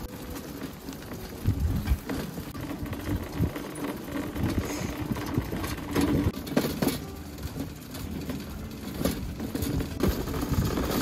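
Boat engine running steadily with a low hum, with wind buffeting the microphone in uneven gusts.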